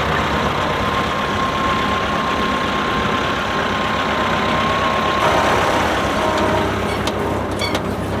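Tractor engine running steadily at work, with a few light clicks near the end.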